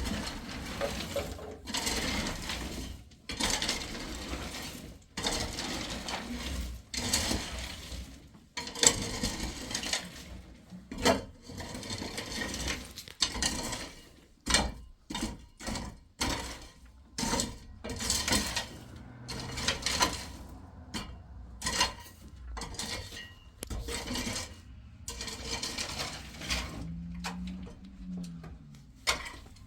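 Repeated rough scraping strokes, each up to about a second long, broken by sharp knocks and clatters.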